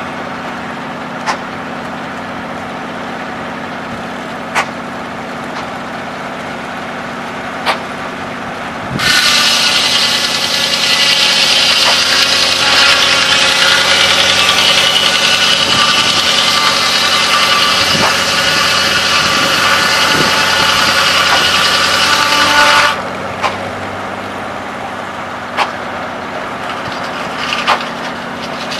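Engine powering a large circular sawmill runs steadily. About nine seconds in, the blade bites into a log and screams through the cut for about fourteen seconds, then drops back to the engine running, with a few sharp clicks before and after the cut.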